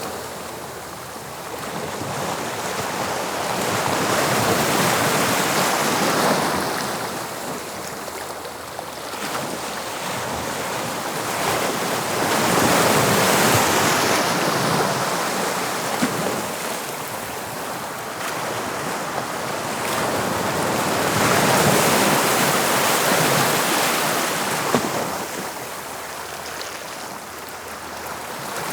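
Waves of the English Channel breaking on the shore: a continuous surf wash that swells three times and falls back between breakers.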